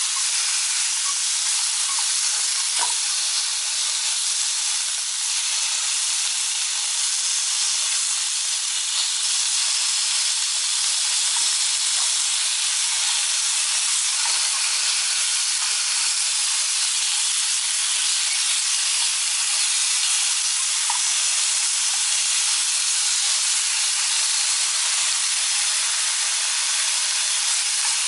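Thin slices of pork sizzling in a hot frying pan: a steady hiss with a few small pops here and there.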